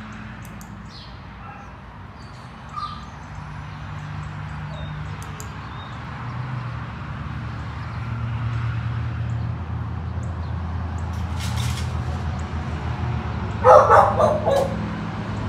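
A dog barks in a quick run of several sharp barks near the end. Underneath, a steady low motor drone slowly grows louder.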